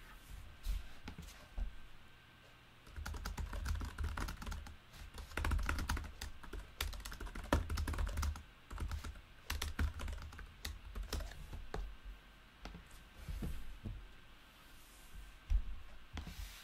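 Fast typing on a computer keyboard: a rapid run of key clicks with dull thuds, easing off briefly near the start and again past the middle.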